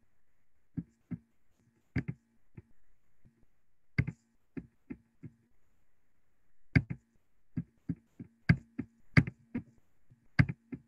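Computer keyboard keys tapped in short, irregular runs of sharp clicks, some louder than others, with a faint low hum under them.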